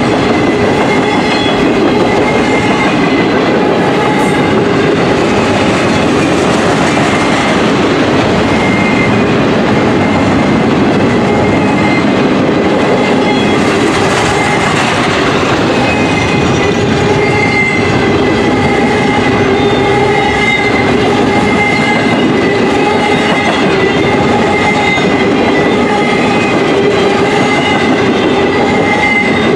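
Double-stacked container well cars of a freight train rolling past close by, a steady loud rush of wheels on rails with a steady high whine over it.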